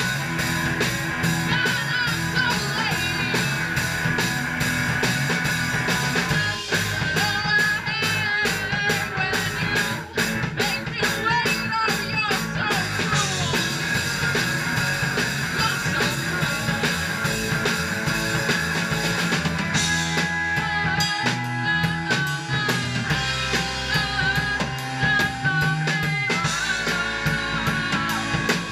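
A rock band playing live: electric guitar and a drum kit, loud and continuous.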